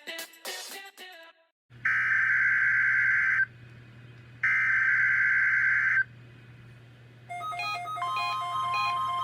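Two bursts of EAS SAME header data tones, a harsh digital screech, each about a second and a half long and a second apart, over a low hum. Near the end a repeating electronic note pattern with a steady tone begins.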